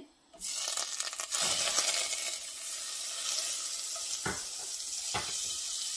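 Butter sizzling in a hot cast-iron Dutch oven. The hiss starts suddenly about half a second in as the butter hits the pot, is loudest over the next second or so, then settles to a steady sizzle as it melts under a wooden spatula. Two knocks of the spatula against the pot near the end.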